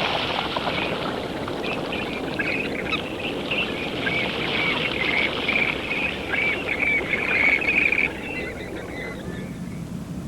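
Western grebes in their courtship rushing display, splashing as they run across the water surface, with a series of short high calls from about two seconds in until about eight seconds in, when the splashing and calls fade down.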